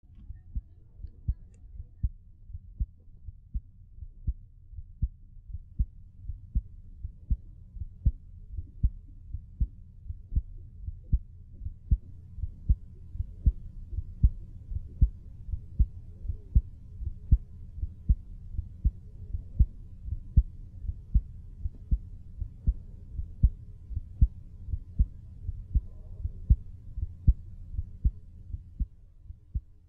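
A person's heartbeat picked up by a studio microphone about half a foot from the chest: a steady, regular run of low thumps. The beats grow louder about twelve seconds in as the recording level is raised.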